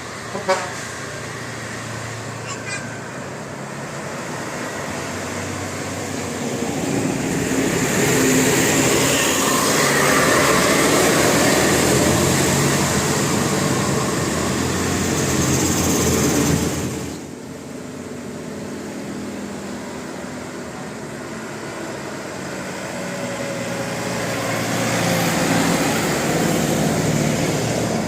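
Heavy road vehicles passing close by: a broad rush of engine and tyre noise swells, cuts off abruptly a little past halfway, then builds again toward the end. A single sharp knock comes right at the start.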